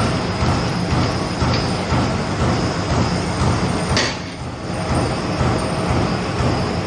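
Roll-fed wad liner die cutting and punching machine running, a dense, steady mechanical clatter that pulses with the press strokes. A sharp click sounds about four seconds in, followed by a brief dip in level.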